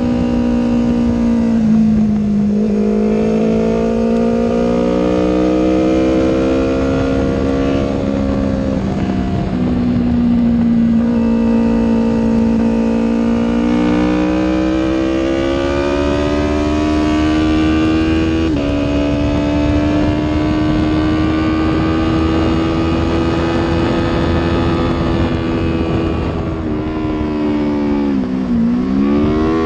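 Yamaha R3's 321 cc parallel-twin engine heard from the rider's seat at trackday pace. Its pitch climbs under throttle and drops away about 2 s, 14 s and 28 s in at gear changes and off-throttle moments, over steady wind rush.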